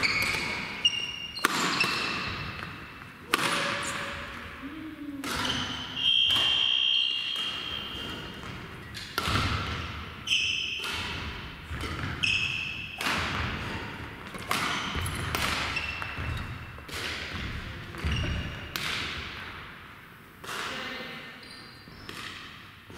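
Badminton doubles rally: rackets smacking the shuttlecock about once a second, each hit echoing in a gym hall, with short shoe squeaks on the court floor between hits.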